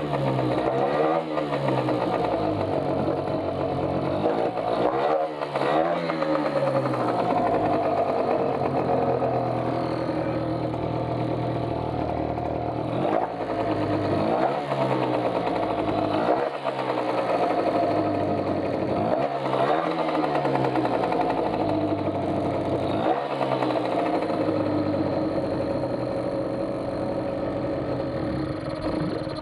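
Parsun 3.6 HP outboard motor running, its engine speed dipping and picking up again over and over as the throttle is worked, then cutting out right at the end.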